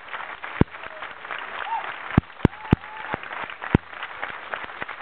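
Audience applauding, with a handful of louder sharp claps standing out.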